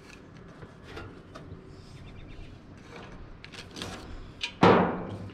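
A small paper instruction booklet being handled and leafed through: a string of soft, irregular crinkles, clicks and scuffs, with one louder, half-second sound about four and a half seconds in.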